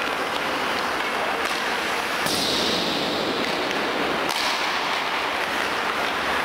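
Ice hockey training on the rink: skate blades scraping the ice and sharp cracks of sticks and puck, with a few distinct cracks and a hiss of skates scraping for about two seconds in the middle.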